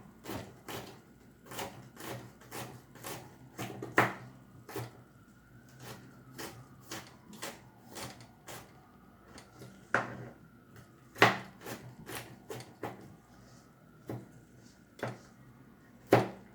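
Kitchen knife chopping garlic finely on a cutting board: steady knocks about two a second, with a few harder strikes among them.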